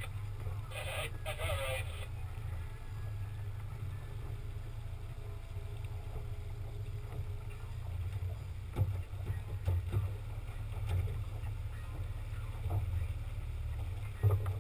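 Boat's outboard motor running steadily at low trolling speed, a low hum. About a second in there are two short pitched calls or squeals, and a few sharp knocks later on.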